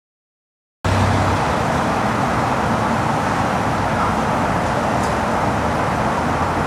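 Silence for the first second, then steady street traffic noise, an even hiss with a low hum underneath.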